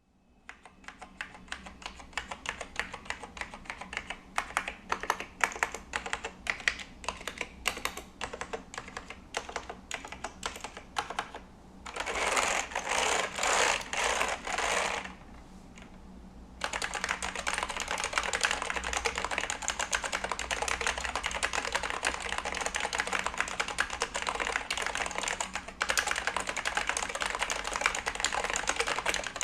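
Typing on a Reudo Rboard Pro for Mac keyboard with Alps SKCL Yellow linear switches and thick keycaps. It starts as separate keystrokes, has a few short rapid runs, then turns into steady fast typing just past halfway.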